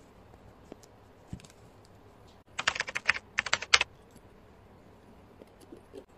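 Two quick bursts of dense, dry clicking and scratching, a little over a second in all, from a needle and a small metal tool being worked through aida cloth close to the microphone. Around them are faint room tone and a few light ticks.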